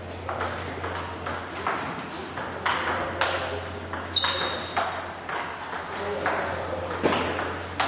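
Table tennis rally: the ball clicks sharply off the rubber bats and the table in quick, fairly regular alternation, about two hits a second. A couple of brief high squeaks come through between hits.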